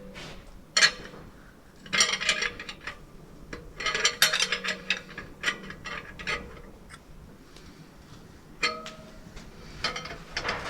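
Hand tools and steel parts clicking and clinking in irregular bursts, with rapid ticking runs, as the cylinder bank of a Rolls-Royce Meteor V12 tank engine is wound off its studs. A faint steady hum sits underneath.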